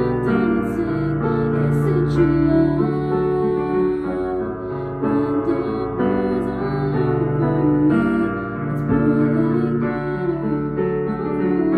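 Digital piano playing an original piece, with long held chords changing every second or two.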